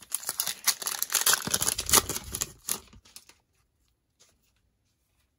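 Plastic cellophane wrapper of a football trading-card pack being torn open and crinkled in the hands, a dense crackling that stops about three seconds in.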